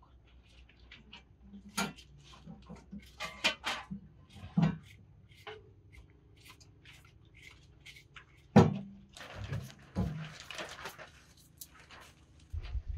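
Scattered clicks, taps and knocks from pots, containers and utensils being handled, with one sharp knock about eight and a half seconds in, followed by a couple of seconds of rustling.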